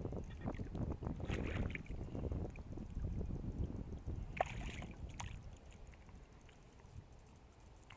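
Wind rumbling on the microphone over moving river water, with brief splashing about one and a half and four and a half seconds in.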